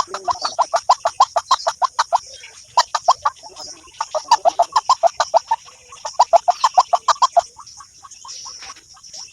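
A bird call of fast, evenly repeated notes, about seven a second, in runs of one to two seconds with short gaps, growing fainter near the end. It is played from a mobile phone as a lure for trapping birds. A steady high hiss runs underneath.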